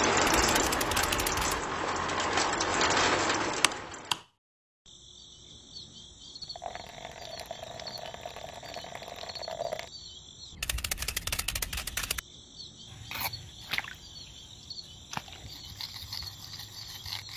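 Outdoor nature ambience: a dense chorus of frogs and insects cuts off abruptly about four seconds in. A quieter steady insect chorus with occasional chirps follows, with a short rush of noise partway through.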